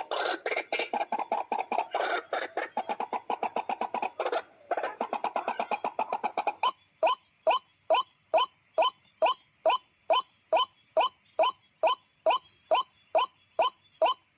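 White-breasted waterhen (ruak-ruak) calling: a dense, rapid chatter of overlapping notes for about the first six and a half seconds, then a regular series of single rising notes, about two a second.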